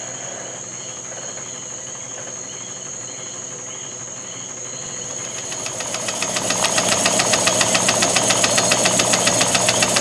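York-Bolton model mill engine running on compressed air, over a steady high whine. About five seconds in it grows louder, with rapid, even exhaust beats of about five a second.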